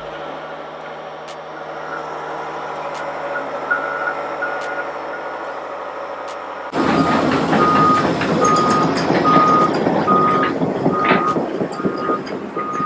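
A backup alarm beeping steadily over a running heavy engine. About two-thirds of the way in, the sound jumps suddenly louder, with the engine strong and the beeps clear and close, about two a second.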